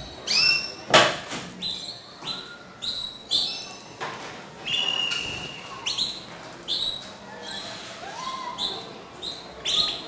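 Domestic canaries singing: a string of clear whistled notes, some held steady and some gliding, mixed with short trills, mostly high-pitched. A single sharp knock stands out about a second in.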